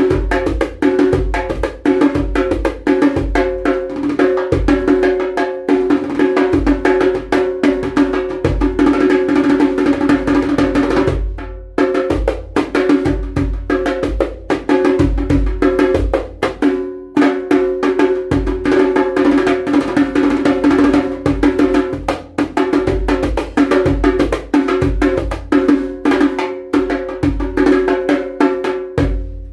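A freshly restored 30-year-old rope-tuned djembe played fast with both hands: a dense run of strokes over a steady ring from the drumhead, with two short breaks about 11 and 17 seconds in.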